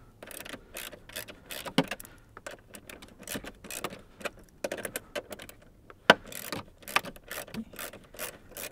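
Small ratchet with a 7mm socket clicking as a bolt is loosened and spun out, a run of short, irregular clicks.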